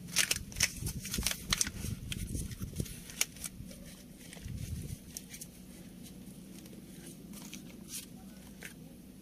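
Rustling, crinkling and clicking of hands handling a truck's wiring harness and its corrugated plastic loom, quick and dense for the first few seconds, then sparser, over a steady low hum.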